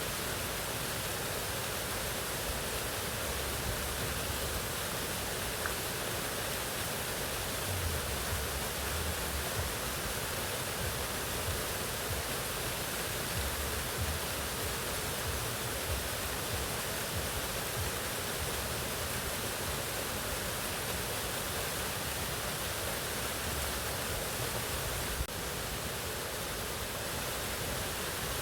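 Mountain waterfall rushing steadily, an even wash of falling water, dipping slightly in level near the end.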